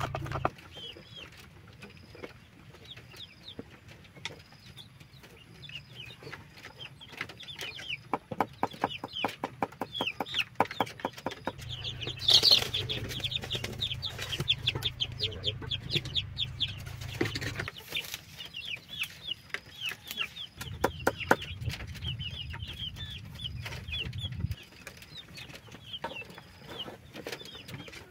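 Domestic chickens: young chicks peeping in quick, high, falling chirps almost without pause, with hens clucking. A run of fast taps comes about a third of the way through.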